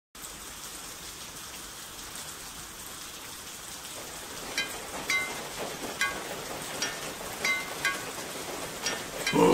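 Steady rain falling, with single water drops plinking with a short ringing note about once or twice a second from about four and a half seconds in. Right at the end, a short loud vocal squeak from a cartoon character.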